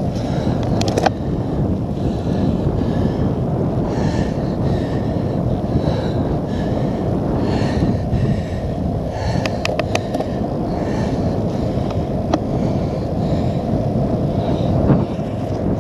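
Wind rumbling on the handlebar camera's microphone over the rolling noise of a cyclocross bike's tyres on wet tarmac. Several sharp clicks from the bike rattling over bumps: a cluster about nine to ten seconds in and a few more later.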